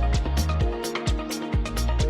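Background music with a steady electronic beat: a deep kick drum about twice a second under hi-hat ticks and sustained synth or guitar tones.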